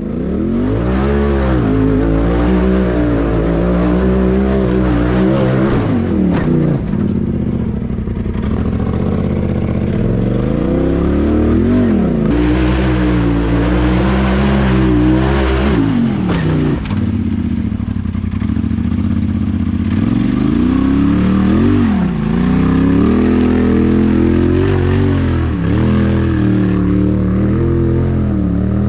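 Polaris RZR Turbo side-by-side engine running under load while driven off-road, its pitch climbing and falling again and again as the throttle is opened and eased off.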